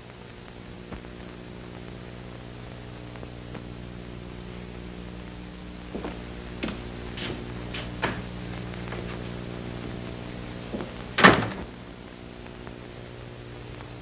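Footsteps on a hard floor, a few clicks, then a door being shut about eleven seconds in, the loudest sound. A steady low hum from an old film soundtrack runs underneath.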